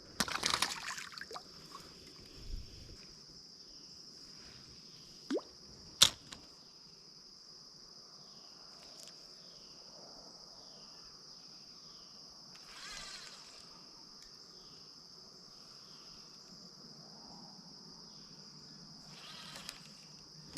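Steady high-pitched drone of insects, with small water sounds and drips in the first second or so and a single sharp click about six seconds in.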